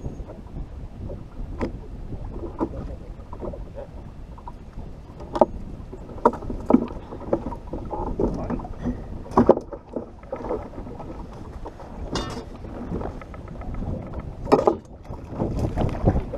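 Choppy lake water slapping against a bass boat's hull, with wind rumbling on the microphone and scattered knocks and clicks on the deck. Near the end a hooked fish splashes at the surface beside the boat.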